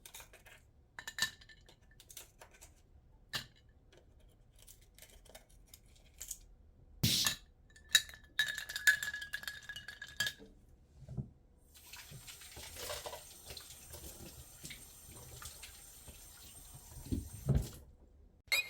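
Dishes and cutlery clinking and tapping, scattered clicks with two or three louder clinks that ring briefly, then a steady hiss for about six seconds near the end.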